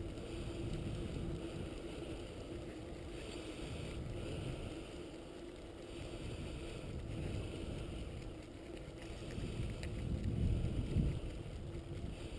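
Steady rumble of a dog-drawn mushing rig's wheels rolling over a gravel road behind a running team, with wind buffeting the microphone. The rumble swells louder about ten seconds in.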